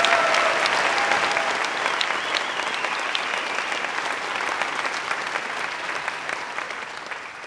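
A large seated audience applauding, a dense patter of many hands clapping that slowly fades away toward the end.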